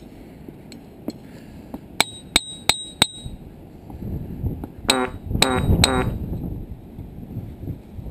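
Hammer striking the boulders of a ringing-rock field: four quick taps about two seconds in, each leaving a short high bell-like ring. Three heavier strikes follow around five to six seconds, with a lower, fuller ring.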